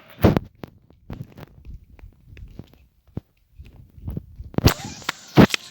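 Irregular knocks and thumps with light rustling between them. The loudest come near the end.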